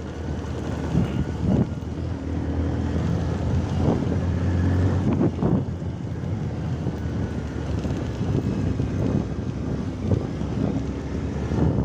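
A vehicle engine running steadily while driving over a rough road, with wind buffeting the microphone and a few short knocks.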